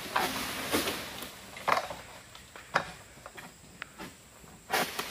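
Oil palm egrek (pole-mounted harvesting sickle) cutting at a palm frond high in the crown: five sharp cracks, about a second apart, as the blade is pulled into the frond base.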